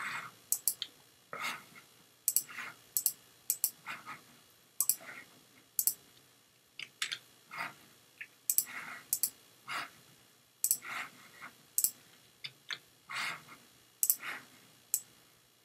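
Irregular, fairly quiet clicks of a computer mouse and keyboard, a few a second, as text is selected, copied and pasted.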